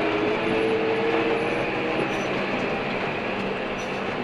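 Tractor engine and cab noise heard from inside the cab while driving, pulling a trailer loaded with about 14 tonnes of gravel. A steady running noise, with the engine note rising slightly about half a second in and then holding steady.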